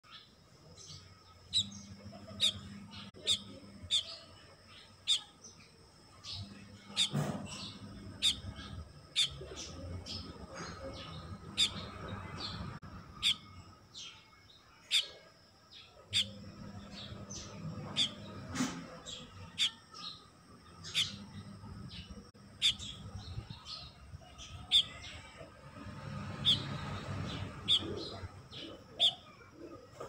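Baya weaver chirping: short, sharp single chirps repeated about once a second, over a faint low rumble.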